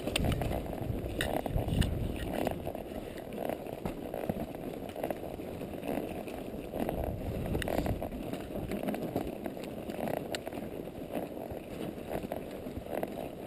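Horse walking through a wet, muddy trail: hooves squelching and knocking in the mud, with wind buffeting the microphone as a low rumble.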